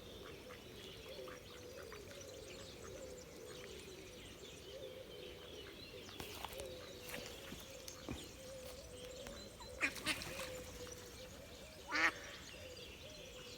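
Ducks quacking, a couple of short calls about ten seconds in and the loudest near the end, over faint birdsong.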